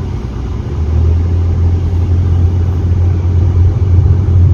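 Car engine and tyre rumble on a sandy dirt track, heard from inside the cabin: a steady low drone that grows louder about a second in.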